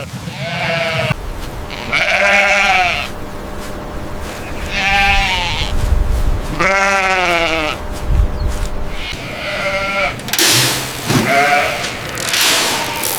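A flock of sheep bleating, about six drawn-out bleats a second or two apart, some with a wavering pitch. A rushing noise comes in near the end.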